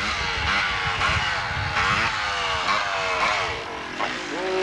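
Three-wheeled ATV engine running as it is ridden across a grass field, its pitch rising and falling again and again as the throttle is worked.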